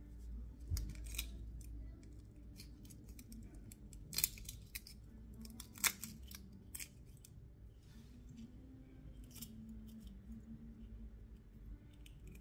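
A hard-boiled egg being cracked and peeled by hand: small sharp crackles and clicks of the shell breaking and coming away, scattered through. The loudest cracks come about four and six seconds in.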